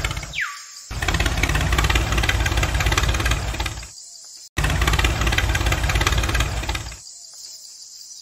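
Truck engine idling with a steady knocking rhythm, heard in stretches of about three seconds that cut off abruptly twice, with a short falling squeak about half a second in.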